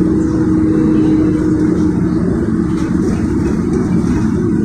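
Cabin sound of a Sinara 6254.00 trolleybus driving at steady speed: the even hum of its DTA-3U1 traction motor, with one steady tone, over the low rumble of tyres on a wet road.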